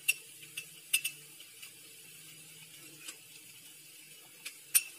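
A steel spoon clinking against a small glass bowl as salt is scooped out: several short, sharp clinks spread out over a few seconds, over a faint steady low hum.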